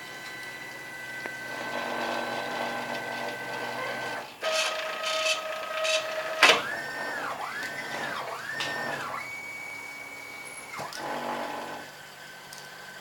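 Stepper motors of a CNC router moving its axes, a whine whose pitch rises and falls with each move. There are three quick moves in a row in the middle, then a held steady tone. A few clicks come before that, the sharpest about six and a half seconds in.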